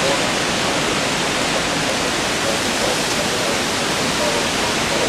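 Strong wind from a dry thunderstorm rushing steadily, a loud even hiss with no rain.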